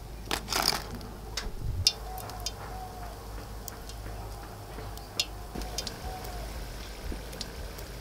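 Crisp fried winged bean fritters tipped from a perforated metal ladle into a woven basket: a short rustling clatter about half a second in, then scattered light ticks and crackles.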